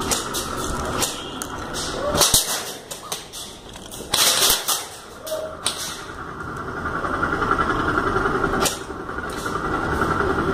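Airsoft guns firing: scattered sharp single shots and short clattering bursts, with a steady whirring hum that builds from about halfway through.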